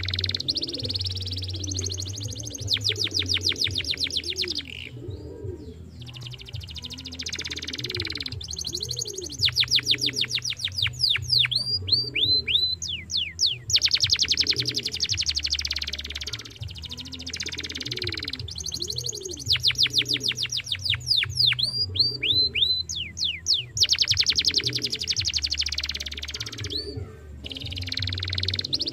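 Domestic canary singing: long phrases of very fast trills and rolls mixed with short down-slurred whistles, broken by brief pauses about every ten seconds.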